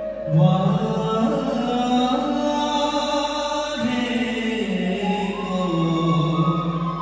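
Assamese Bihu folk singing: voices holding several long notes, each sliding slowly into the next.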